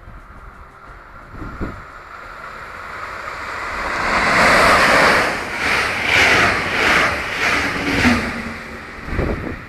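DB class 120 electric locomotive and double-deck coaches passing through a station at speed: a rush of wheel and air noise that builds as the train approaches, then pulses in a steady rhythm, a little under two beats a second, as the coaches go by, and fades near the end.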